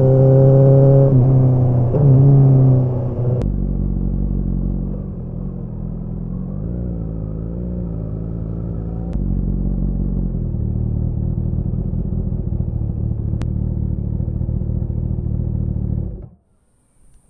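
Kawasaki ZX-10R inline-four engine and exhaust heard from on the bike, running hard with the pitch wavering. About three and a half seconds in the note drops and settles into a lower, steady run, then the sound cuts off suddenly near the end.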